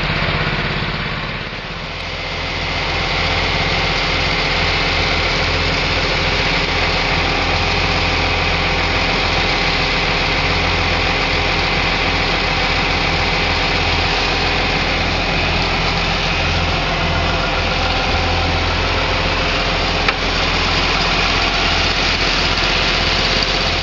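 John Deere loader tractor's diesel engine running steadily, with one brief click about twenty seconds in.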